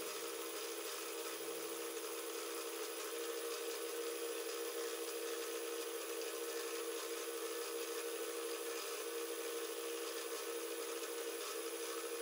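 BL250D bench metal lathe running with a steady hum while its carriage feeds a turning tool along the outer diameter of a round metal blank.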